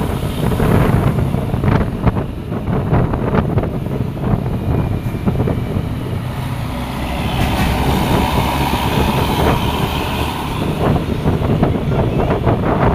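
A heavy vehicle, likely a bus or truck, driving close past with its engine running loudly. A higher whine joins in from about halfway to near the end.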